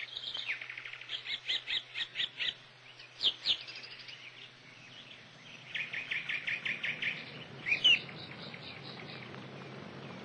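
Bird calls: two runs of quick, high, repeated chirps at about five or six a second, with a few sharper single calls between them, over a steady low hum.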